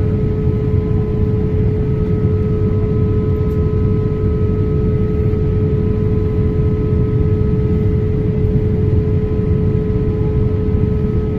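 Steady engine and airflow noise of a Boeing 787 in flight, heard inside the cabin: a deep, even rush with a steady hum and a few fainter whining tones above it.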